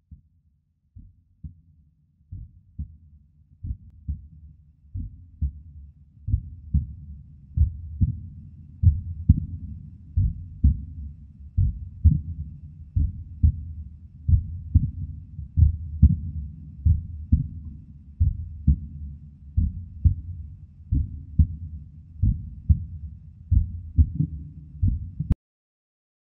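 Muffled, bass-only intro soundtrack: a heartbeat-like double thump about every one and a half seconds over a low drone. It fades in over the first few seconds and cuts off abruptly about a second before the end.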